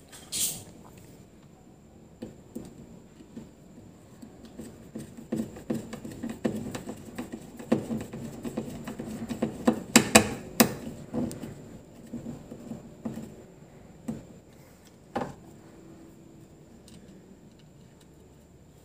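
Handling noise from the open plastic housing of a battery aerator as wires and small plug connectors are fitted inside it: irregular light clicks, scratches and knocks, busiest around the middle and loudest about ten seconds in, with a single knock a few seconds later.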